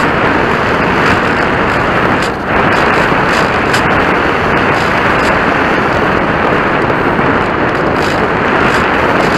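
Steady loud rush of airflow and motor noise picked up by a camera riding on a model airplane in flight, with a brief dip about two and a half seconds in.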